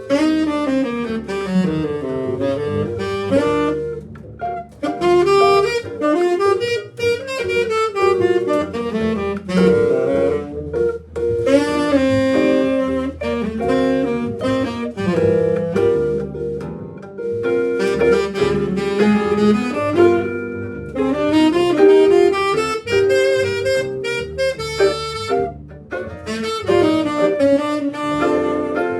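A small band playing jazz, with a saxophone carrying a busy melodic line over bass.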